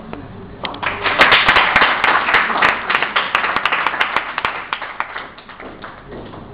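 Audience clapping: the applause starts about a second in and dies away after about five seconds.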